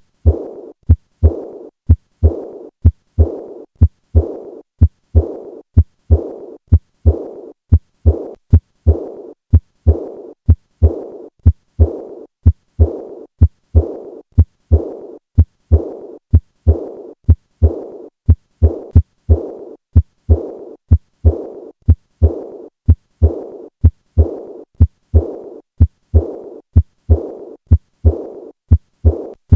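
Heart sounds of acute aortic regurgitation auscultated at the fourth left intercostal space. Each regular beat is a sharp low thump followed by a fading, blowing murmur, the early diastolic decrescendo murmur of aortic regurgitation.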